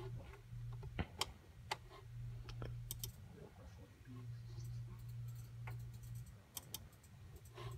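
Scattered sharp clicks from operating a laptop, about a dozen at uneven intervals, over a low hum that comes and goes.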